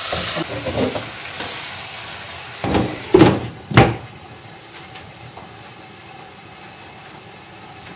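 Chicken and masala sizzling in a wok, then a glass lid set down on the wok with a few knocks and clanks about three seconds in; the sizzling goes on quieter under the lid.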